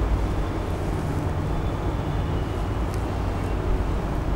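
Steady low background rumble with no speech, and a faint click about three seconds in.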